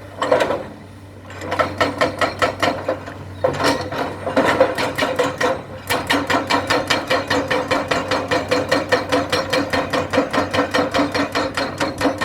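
Excavator running, with a rapid even clatter of metal clanks, about six or seven a second, over the steady drone of its engine. The clanking comes in short runs at first, then goes on without a break from about halfway through.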